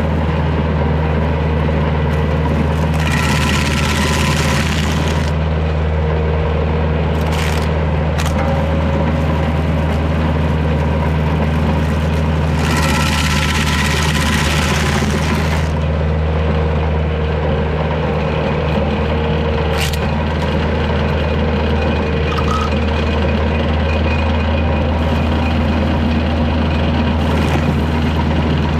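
Kioti DK40 tractor's diesel engine running steadily, driving a Woodland Mills WG24 PTO stump grinder. Twice, for a few seconds each, a harsh hissing rasp rises over the engine as the grinder wheel's teeth cut into a red pine stump.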